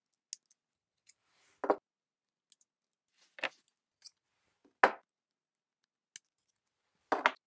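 Flush cutters working the metal tabs off lithium-ion cells in a power tool battery pack: separate sharp clicks and snaps as the tabs are pried up and rolled back and the spot welds pop. About seven of them fall at uneven gaps, the loudest about five seconds in and a quick double snap near the end.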